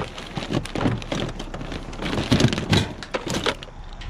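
Plastic sheeting crinkling, with cables and debris rattling and knocking as a tangle of jumper cables and wire is dragged out of a trash-filled dumpster. The loudest knocks come about halfway through.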